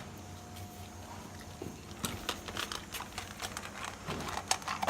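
A dog chewing dry dog biscuits: irregular sharp crunches, with clusters about two seconds in and again near the end.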